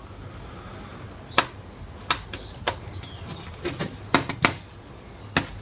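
About ten sharp little clicks and taps at uneven intervals, beginning about a second and a half in, from a size 00 screwdriver and tiny screws being worked out of a Samsung Galaxy phone's housing.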